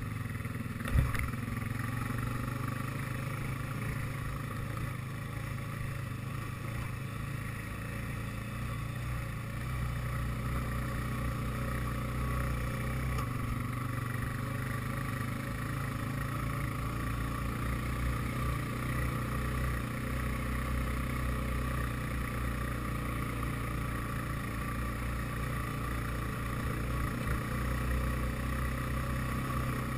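ATV engine running steadily under way over rough dirt ground, with one sharp knock about a second in.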